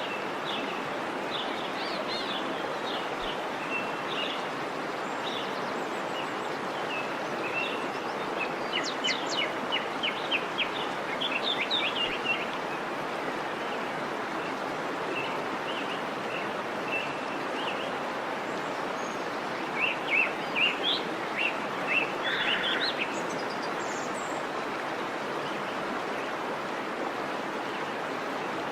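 Waterfall rushing steadily, with small birds chirping over it; the chirps come in quick clusters about a third of the way in and again about two-thirds through.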